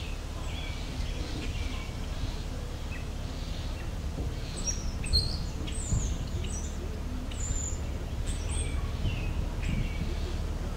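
Songbirds chirping and singing: many short, high chirps and whistled notes, busiest in the middle of the stretch, over a steady low rumble.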